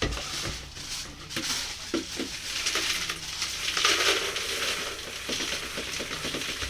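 Dry Chex cereal pieces rustling and clattering against each other and the container as they are added to the melted chocolate and peanut butter mixture and moved around, with small clicks throughout and a louder swell of rustling about halfway through.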